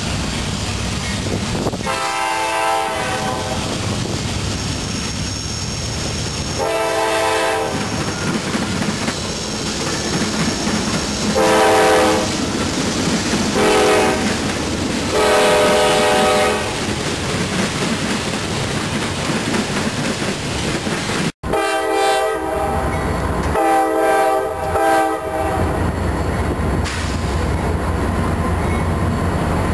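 CSX freight diesel locomotive's air horn blowing the grade-crossing signal, two long blasts, then a long, a short and a long, over the steady rumble of the engine and the rolling hopper cars. After a sudden cut about two-thirds through, a CSX locomotive horn sounds again, a long blast and then two short ones, over steady wheel and rail noise.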